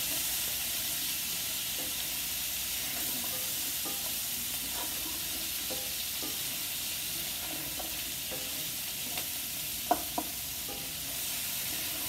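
Diced carrots, fingerling potatoes and onion frying in oil in a 15-inch Lodge cast-iron skillet while being stirred with a wooden spatula: a steady sizzle with light scrapes and taps of the spatula on the pan. Two sharp knocks close together about ten seconds in.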